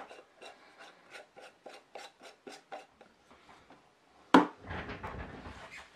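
Hands working a metal tin of Smith's Leather Balm: a quick run of short scraping strokes, about four a second, for nearly three seconds. A little past four seconds in comes one loud knock, followed by rougher rubbing and handling noise as the balm is worked onto veg-tan leather.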